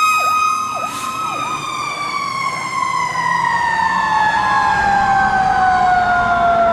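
Fire engine sirens as a Seagrave Marauder II pumper drives away on a call. One siren tone falls slowly and steadily in pitch throughout, over a faster siren sweep that repeats about twice a second and fades as it goes.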